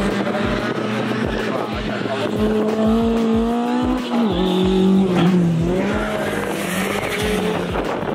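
A Corolla drift car's engine held high in the revs, dropping sharply about four seconds in and then climbing back, with tyre squeal as the car slides.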